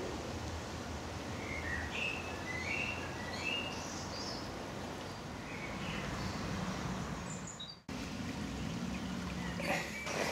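Shallow woodland stream flowing over stones, a steady wash of water, with birds chirping over it in the first part. The sound cuts briefly about eight seconds in, and near the end water trickles and drips at the culvert mouth.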